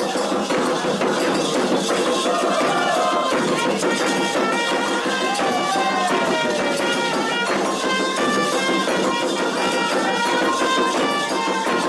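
Candomblé ceremonial music: atabaque drums and hand percussion play the rum rhythm for Oxóssi while a clarim (bugle) sounds short, repeated notes over them.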